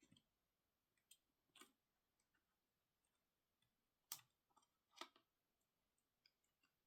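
Faint, scattered small clicks and taps of tools and parts being handled while a MacBook Pro is taken apart, with two louder knocks about four and five seconds in.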